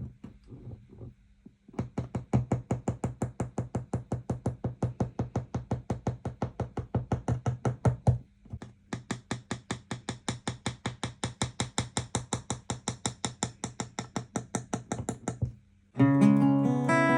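Acoustic guitar picked in a fast, even run of single notes, about five a second, with a short break at about eight seconds. Near the end it changes to a louder strummed chord.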